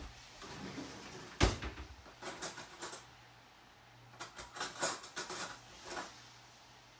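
Kitchenware being handled: a sharp knock about a second and a half in, then two spells of light clattering and clicking.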